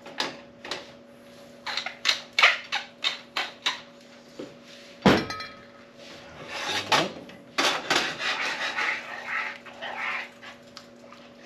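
A pepper mill is twisted over a frying pan, giving a run of short grinding rasps for the first few seconds. A single knock comes about five seconds in. After that, a wooden spatula stirs and scrapes the sauce in the frying pan.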